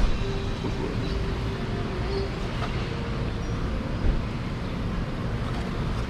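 Steady rumble of passing street traffic, with a single short knock about four seconds in.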